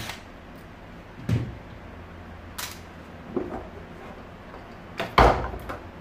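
Several short knocks and clunks of a Rowenta Compact Power Cyclonic vacuum cleaner's parts being handled as it is taken apart, the loudest about five seconds in.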